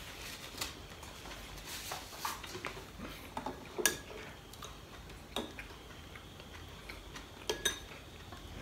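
Metal cutlery clinking and scraping on a ceramic plate as food is picked up: a handful of separate sharp clinks, the loudest about four seconds in and two close together near the end.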